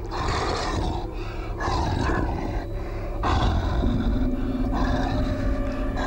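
Staged sound effect of a large creature, meant as Bigfoot, breathing hard in a string of rough, heavy breaths or growls about a second apart. Under it runs a low rumble, and a held drone tone comes in partway through.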